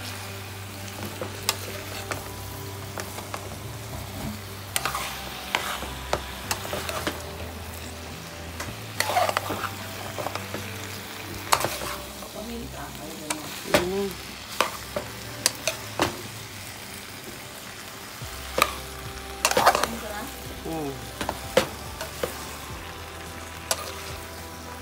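Chunks of squash, sweet potato and other vegetables sizzling in oil in a pan as they are stirred, with frequent sharp clacks of the spoon against the pan.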